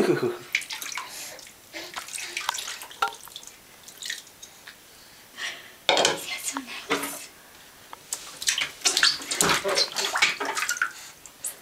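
Water splashing and sloshing in a plastic infant bath tub as a baby is washed, in irregular bursts that come thickest around six seconds in and again from about eight and a half to eleven seconds.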